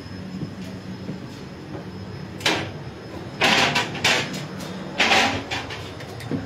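Sliding interconnecting doors of a passenger train carriage being opened and pushed through, with a few loud, short sliding and knocking noises between about two and a half and five and a half seconds in. Under them runs the train's steady low rumble.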